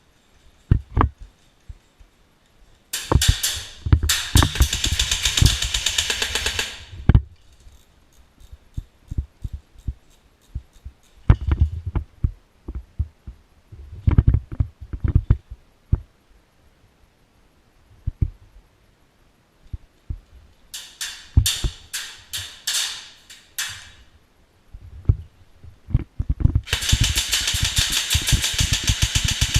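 Electric airsoft guns firing full-auto: three long bursts of rapid cracking shots, about four seconds in, around two-thirds through, and again near the end, with scattered single knocks and shots in between.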